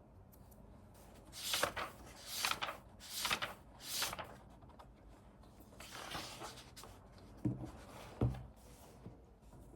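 Four swishing, rubbing strokes about a second apart, a softer one a little later, then two soft knocks near the end.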